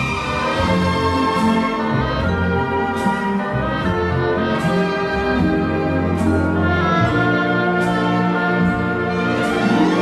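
Orchestral background music, strings and brass playing held chords that change every second or so, with a light high tick about every second and a half.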